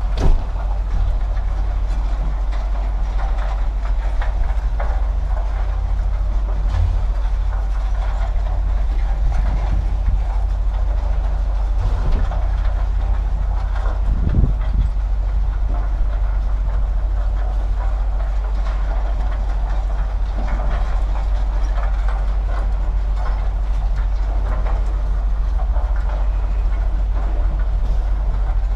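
Steady low mechanical rumble, like a large engine or heavy machinery running, with a few scattered sharp knocks, the clearest just after the start and about a third of the way in.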